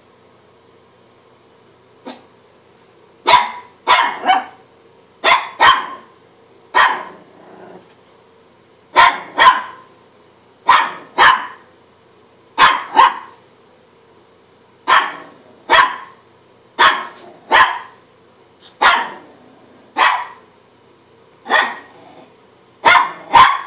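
A Chihuahua barking at its own reflection in a mirror: about twenty short barks, mostly in quick pairs, with pauses of a second or two between them.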